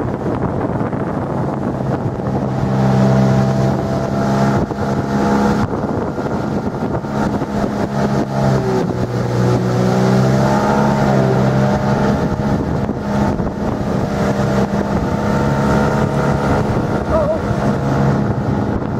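Tohatsu 9.9 hp outboard motor running under way on a small boat, with wind on the microphone. The engine note grows stronger about two to three seconds in, then holds fairly steady, wavering in pitch around the middle.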